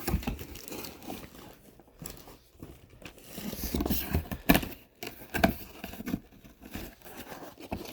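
Packaging being handled while a boxed rifle-parts kit is unpacked: irregular rustling and crinkling of wrapping, scraping and a few sharp knocks, the loudest about halfway through.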